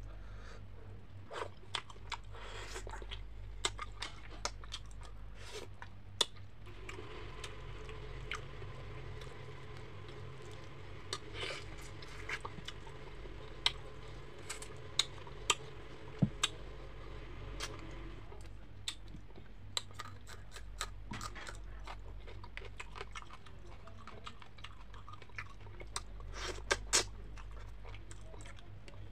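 A person chewing and crunching fried fish eaten by hand, with scattered sharp clicks and crackles as the crisp skin and small bones are bitten and picked apart.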